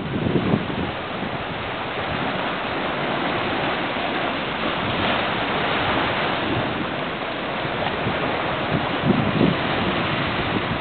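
Steady wash of sea surf breaking on rocks, mixed with wind on the microphone that rumbles in gusts near the start and again about nine seconds in.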